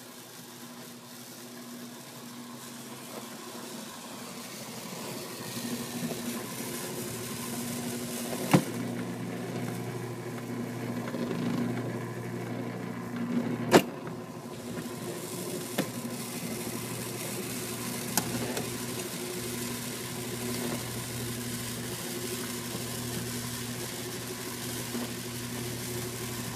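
CatGenie self-washing cat box running its cleaning cycle, a steady motor hum that swells over the first few seconds and then holds. A few sharp clicks cut through it, the loudest about eight and fourteen seconds in.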